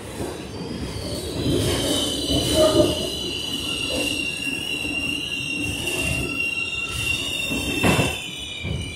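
R62A subway car running on the track, heard from inside the car. Its steel wheels start a steady high-pitched squeal about a second and a half in, and it holds over the running rumble. A few sharp knocks from the track come through, the loudest near the end.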